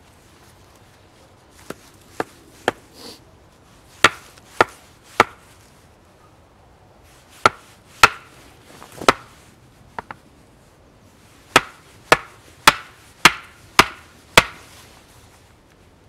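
Hultafors hatchet striking the top of a wooden stake to drive it into the ground: sharp wooden knocks with a short ring. A few light taps come first, then three groups of harder strikes, the last a run of six about two a second.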